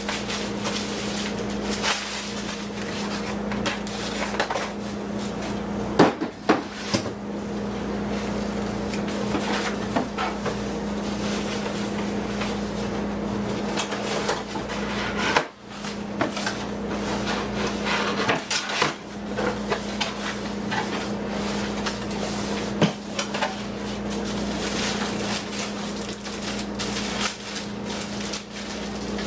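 Hard plastic vacuum cleaner parts being handled and unpacked: scattered clicks, knocks and rustling, with a few sharper knocks, over a steady low background hum.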